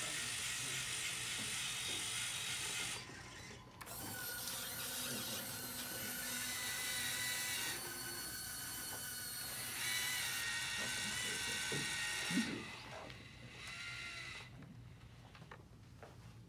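Small electric gearmotors on a tracked hobby robot whirring with a gear rattle as its cable winches drag a bucket through popcorn and hoist it. The motors pause briefly about three seconds in, there is a short knock about twelve seconds in, and the whirring stops near the end.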